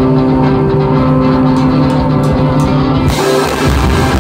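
Rock band playing live. Electric guitars and bass hold sustained notes, then about three seconds in the drums and the full band crash in.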